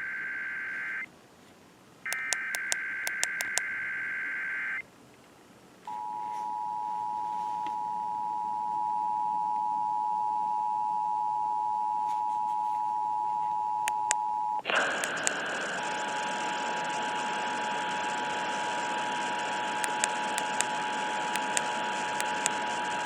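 Emergency Alert System test tones over the radio: the last two screechy digital SAME header bursts, then the steady two-tone EAS attention signal. About fifteen seconds in the tone cuts off abruptly and loud static hiss comes up, with the two-tone attention signal starting again a second later.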